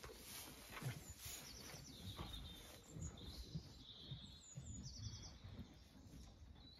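Faint birdsong: two short runs of quick high trilled notes, about a second and a half in and again near five seconds, with a few chirps between. Under them are soft, uneven low rustles.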